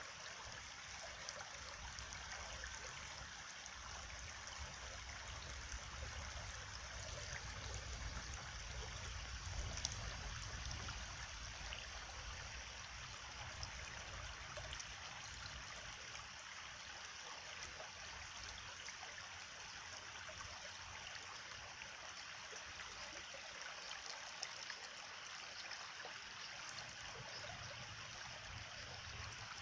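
Water running steadily in a stream, trickling and gurgling.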